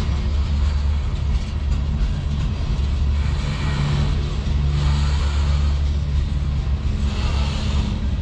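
CN manifest freight train's cars, autoracks then gondolas, rolling past close by: a steady, loud rumble of steel wheels on rail with a hiss over it.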